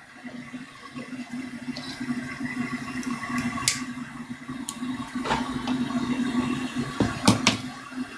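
Toilet flushing: a steady rush of water that builds over the first two seconds and keeps running, with several sharp knocks and clicks in the second half.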